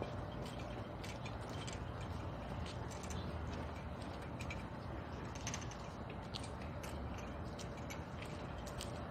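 Footsteps of a procession walking on a paved street: irregular light taps and clicks over a steady low background noise.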